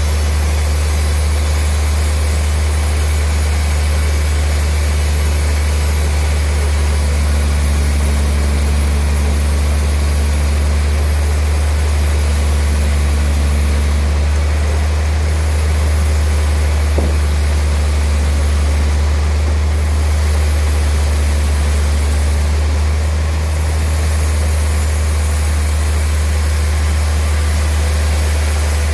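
Sawmill machinery running steadily: a loud, even low-pitched motor drone with a hiss above it and no change in load.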